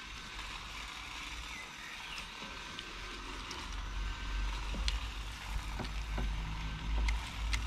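Faint clicks and rubbing of plastic parts as a knapsack sprayer's wand is screwed onto its trigger handle, over a steady low rumble and background hiss.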